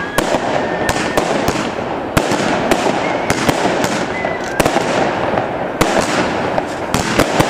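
Fireworks display: aerial shells bursting with a rapid, irregular series of sharp bangs, about two a second, over a continuous crackling rumble.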